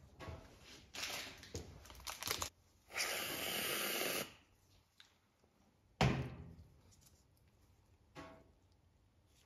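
Aerosol whipped-cream can hissing steadily for about a second as it sprays cream, after some clicking and rustling of handling. A single sharp knock follows about six seconds in.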